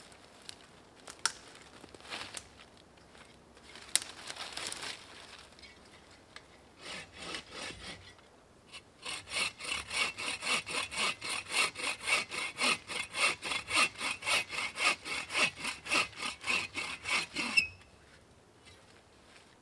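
Agawa Canyon Boreal21 folding bow saw cutting through the trunk of a thin dead standing tree. A few slow starting strokes lead into fast, even strokes at about four a second, which stop abruptly near the end. Before the sawing there are a few light steps and a rustle in the leaf litter.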